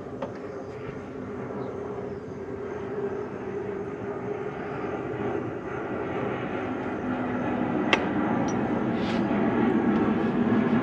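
A low engine drone that grows steadily louder, with a single sharp click about eight seconds in.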